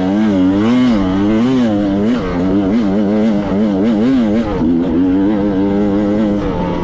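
Enduro motorcycle engine revving in quick blips, its pitch rising and falling about two to three times a second, then holding steadier after about four and a half seconds, as the throttle is worked over rough, technical ground.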